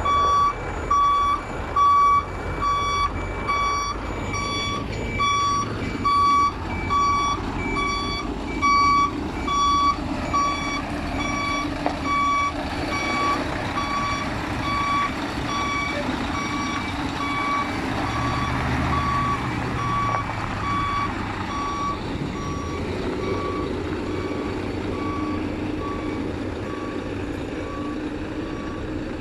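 A truck's reversing alarm beeping a little more than once a second, loud at first, then fading and stopping about three-quarters of the way through, over the steady low running of an engine.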